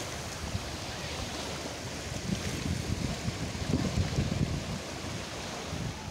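Small sea waves washing around rocks in shallow water, with wind gusting on the microphone.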